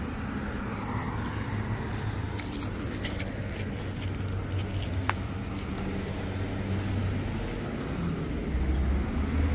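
Street traffic: a steady low rumble of car engines, growing louder near the end, with one sharp tick about five seconds in.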